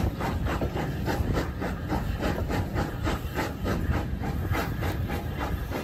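Steam locomotive chuffing steadily as it hauls the train, heard from a coach window: an even, rapid beat of about five exhaust beats a second over a constant low rumble of the running train.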